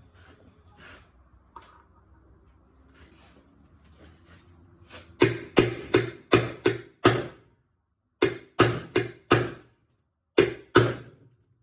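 Hammer blows driving a rust-seized wheel bolt out of a Toro mower: a few seconds of quiet handling, then about a dozen sharp strikes, two or three a second, in three bursts with short pauses between them.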